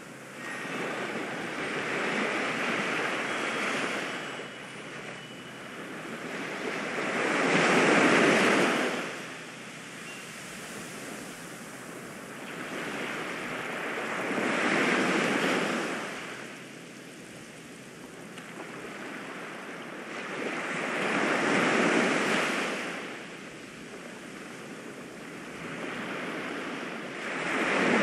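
Ocean waves breaking and washing back, each surge swelling and fading about every seven seconds.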